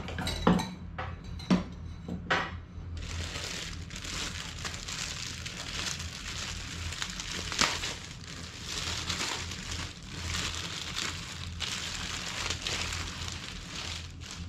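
Plastic bread bag crinkling and rustling continuously as a loaf of sliced white bread is unwrapped and handled, after a few light knocks in the first two seconds.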